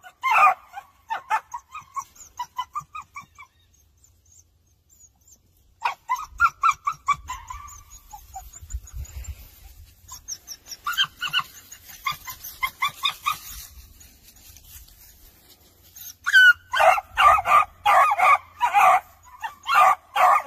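A small dog barking in quick runs of short, high yaps, about two to three a second. It pauses about four seconds in, starts again, and is loudest and most rapid over the last few seconds.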